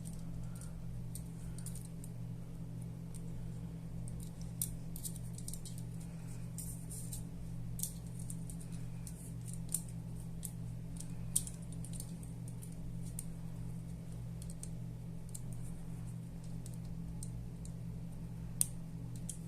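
Light, scattered clicks and taps of small airsoft MP5 trigger-pack parts and a pin being handled and fitted, with a few sharper clicks, over a steady low hum.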